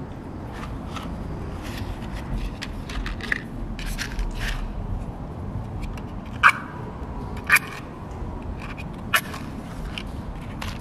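A wooden match struck on a matchbox three times, short scratchy strikes about a second apart, the match burning by the end, after a few seconds of light rustling as the box is handled. A steady low rumble runs underneath.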